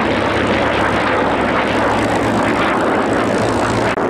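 A P-47D Thunderbolt, a P-51D Mustang and an F-35A Lightning II flying past in formation. The steady drone is the piston engines and propellers of the two warbirds (the P-47's Pratt & Whitney R-2800 radial and the Mustang's Merlin V12), mixed with the F-35's jet. It is loud and even, with a brief dip just before the end.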